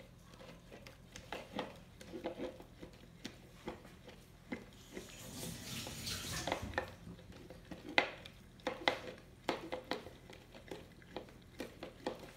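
Golden retriever licking out a plastic yogurt tub held over its snout: wet licking with irregular clicks, taps and scrapes of the plastic tub, and a longer scraping rustle around the middle.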